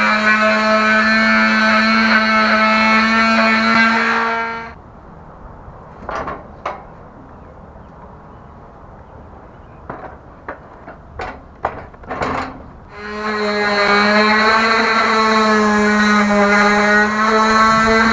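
Electric power sander running against the metal go-kart frame, a steady motor whine whose pitch wavers slightly under load. It stops about four and a half seconds in, leaving a few scattered clicks and knocks, then starts up again near thirteen seconds.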